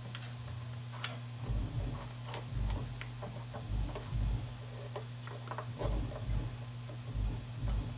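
Small plastic curtain-track parts being handled and snapped together by hand on a wooden bench: scattered sharp clicks and soft taps over a steady low hum.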